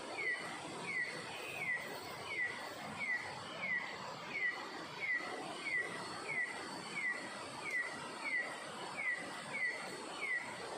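An animal calling: a short whistled note sliding downward, repeated evenly about one and a half times a second, over a steady background hiss.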